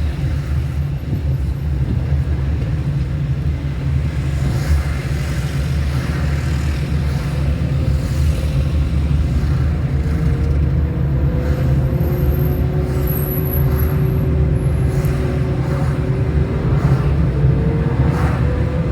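Car driving, a steady low road and engine rumble, with a faint engine note rising slowly over the second half as it gathers speed.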